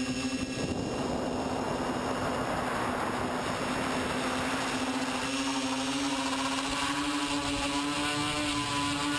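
A TBS Discovery quadcopter's electric motors and propellers whine steadily, heard from a camera on the drone itself, with wind rushing over the microphone. The motor pitch steps up slightly about halfway through and again a little later.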